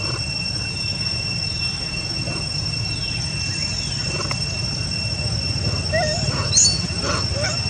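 Baby macaque giving a few short squeaky cries from about six seconds in, the sharpest a brief high squeal, over a steady high-pitched insect drone.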